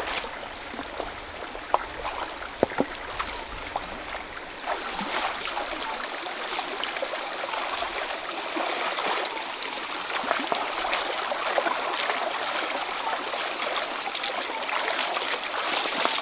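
Shallow stream running over rocks, louder from about five seconds in, with a few sharp knocks early on and splashing from hands and feet moving in the water.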